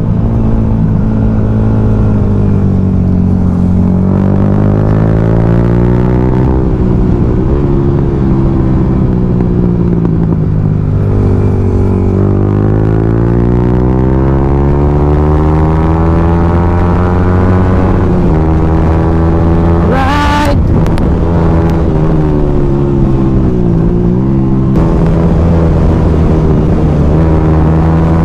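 Onboard sound of a Yamaha motorcycle engine under way, its pitch climbing in long sweeps as the rider accelerates and dropping back when he eases off or shifts, several times over. A short rush of noise cuts in about twenty seconds in.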